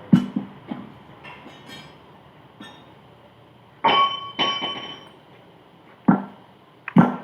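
A string of sharp metal knocks and clanks from steel parts of a truck steering gearbox being worked on. Two louder strikes, about four seconds in, ring on with a bell-like tone.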